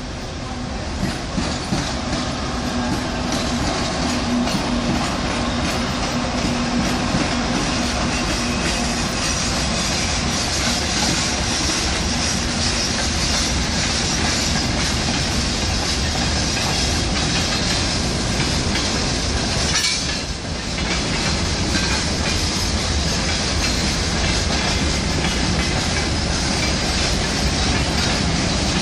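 Railway passenger cars rolling along the track: a steady rumble and clatter of the wheels on the rails, with a short drop in level about twenty seconds in.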